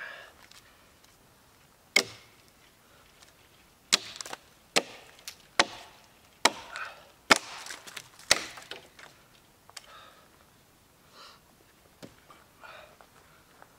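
Axe chopping into a felled log: a string of sharp wooden chops, about seven loud strokes in the first eight and a half seconds, then a few fainter ones.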